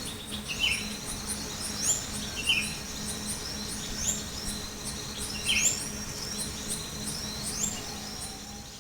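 Small birds calling: short, sharp chirps every second or two over a rapid, high-pitched ticking trill.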